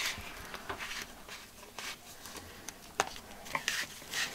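Plastic plumbing fittings, a Hepvo valve and a pipe adapter, handled and pushed together by hand: rubbing and rustling with scattered light clicks, and one sharper click about three seconds in.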